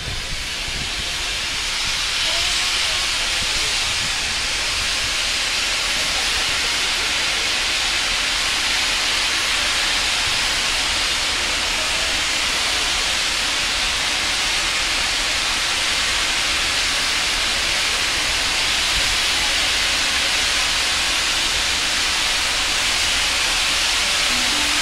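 Steam locomotive venting steam: a loud, steady hiss that builds over the first couple of seconds and then holds.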